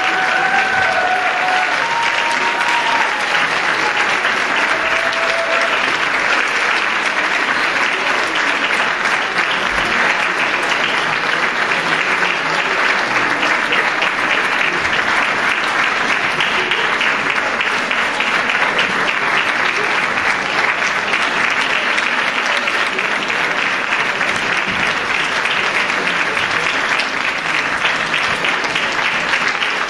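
Audience applauding steadily and loudly, a long ovation, with a few short calls from the crowd near the start.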